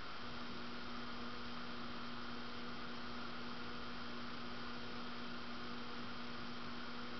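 1985 Envirofan Gold Line industrial ceiling fan running, its motor giving a steady electrical hum over a background hiss. The hum sets in just after the start and holds steady.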